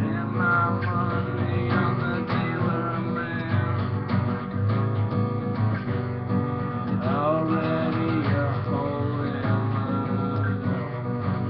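Acoustic guitar strummed steadily in chords.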